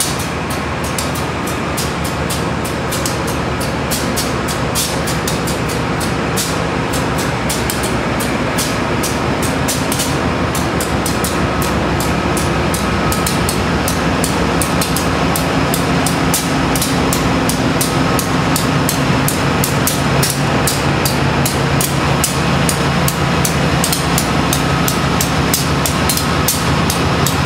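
Amtrak GE Genesis P42DC diesel locomotive No. 113 idling at a standstill: a steady low engine hum that grows louder about halfway through, with rapid faint ticking over it.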